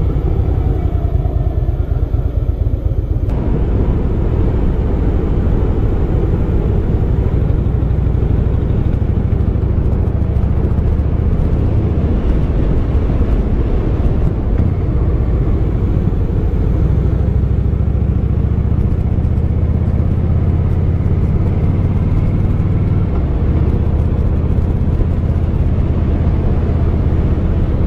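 Harley-Davidson V-twin motorcycle engine running steadily while ridden at road speed, with wind rushing over the microphone. The wind noise gets louder about three seconds in.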